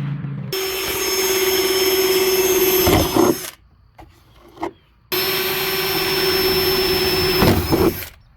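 A power drill runs at full speed twice, each time for about three seconds with a steady whine. Each run ends in a knock and then stops, with a short pause between the two.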